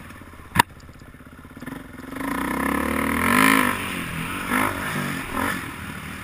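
Dirt bike engine revving up as the bike climbs a rough, rocky trail, swelling to its loudest a little past the middle with a couple of shorter bursts of throttle after. A single sharp knock about half a second in is the loudest sound.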